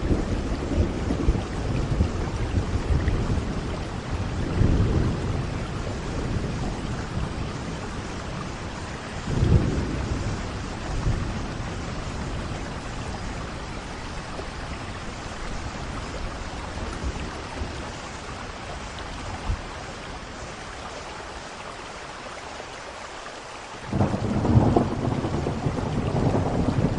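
Steady rain with thunder rumbling in waves: low rumbles swell in the first few seconds and again about nine seconds in, then after a quieter spell a loud rumble breaks in suddenly near the end.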